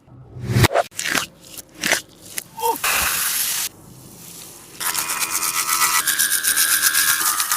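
Tape squishy being handled: a run of quick crinkling squeezes, then a short hiss, and from about halfway a longer steady rasping noise.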